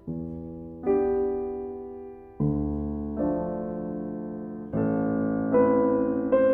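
Background music: slow, gentle piano chords, each struck and left to fade, a new one coming every second or so.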